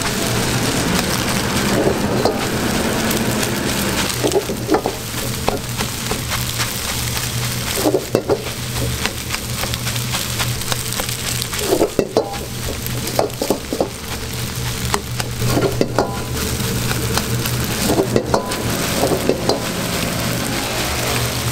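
Egg and rice sizzling in a hot wok while a metal ladle stirs, scrapes and clanks against the wok every couple of seconds, over a steady low hum.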